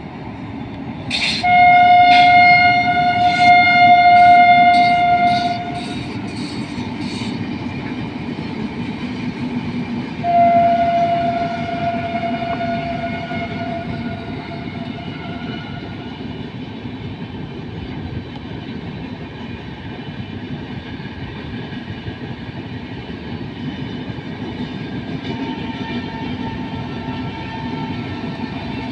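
WAP-7 electric locomotive horn sounding two long blasts, a loud one about a second in and a softer one about ten seconds in. Under the horn and after it, the steady rumble and clatter of passenger coaches rolling past, with a fainter steady tone near the end.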